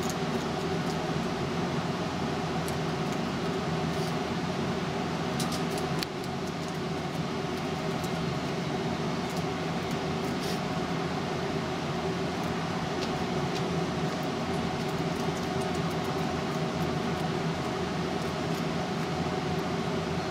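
Steady drone of a building's refrigeration cooling plant: a constant machine hum with several fixed tones that does not let up. A few faint clicks sound over it, a crow's beak pecking at food on the ledge.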